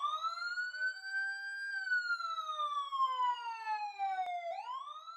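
Police siren wail: the pitch rises at the start, glides slowly down over about three seconds, then starts rising again near the end.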